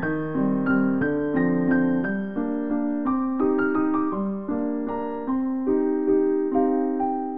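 Piano music: a simple melody of single notes struck at an even pace, a few a second, each ringing and fading.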